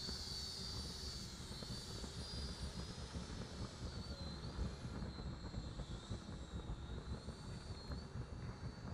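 Electric ducted fan of an RC FMS Hawk model jet whining at low taxi power, its high pitch wavering up and down as the throttle is worked, over a steady low rumble.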